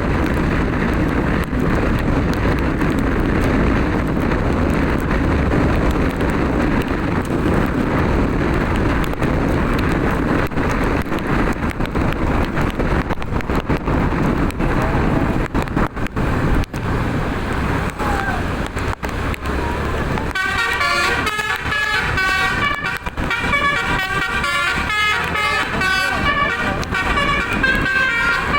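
Steady rushing road noise. About twenty seconds in, a bus telolet horn starts playing a quick tune, several horn tones sounding together and stepping from note to note.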